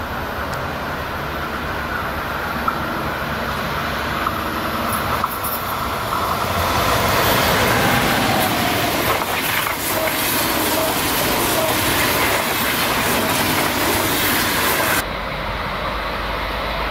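ICE high-speed train approaching and passing close by at speed: a rising rush of wheel-on-rail and air noise that is loudest as the carriages go by. About fifteen seconds in it cuts off abruptly to a quieter, low rumble.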